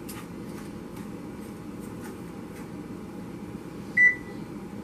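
Metal spoon stirring dry granulated sugar in a nonstick frying pan, heated for caramel, as faint scraping ticks over a steady background hum. About four seconds in, the spoon strikes the pan with one sharp ringing clink.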